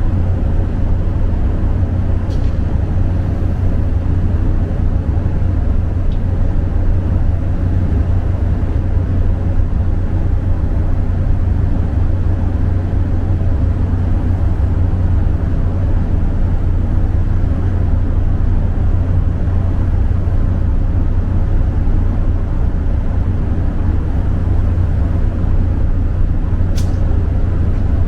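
Steady low drone of a car ferry's engines heard aboard while under way, with a faint click a couple of seconds in and another near the end.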